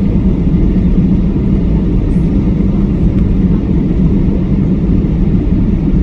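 Steady cabin noise inside a Boeing 737-800 on approach to land: the low drone of its CFM56 engines and the rush of air over the fuselage, with a hum near the bottom.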